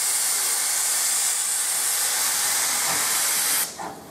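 A steam locomotive hissing loudly and steadily as it lets off steam. The hiss cuts off abruptly near the end.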